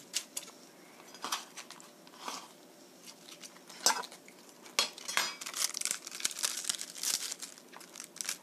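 Raw cabbage being cut and broken apart by hand: a few sharp knocks of a knife through the cabbage onto a plastic cutting board about four to five seconds in, then crisp crackling as the leaves are pulled apart.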